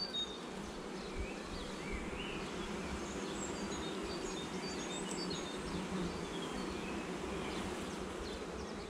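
Honeybees buzzing: a steady hum from the mass of bees on the open hive and on the frames being lifted out.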